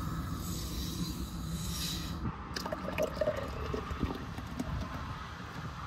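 A plastic bottle of sparkling water hissing for about two seconds as its cap is twisted open; the hiss stops suddenly. Then the water is poured into a glass, splashing and fizzing.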